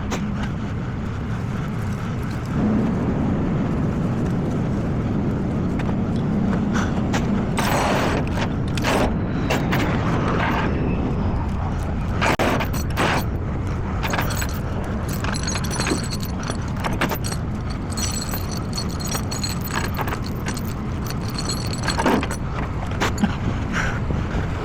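Tow truck engine running steadily, with intermittent metallic clinks and scrapes.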